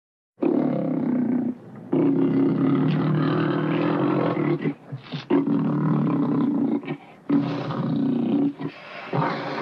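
A cartoon tiger's roars: a series of long, loud roars with brief breaks between them, starting about half a second in.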